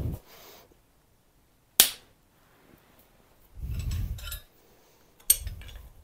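A spanner working a rusted stud nut on a cast-iron exhaust manifold. Two sharp metallic cracks about three and a half seconds apart, the second followed by a short rattle, with a dull low thud between them.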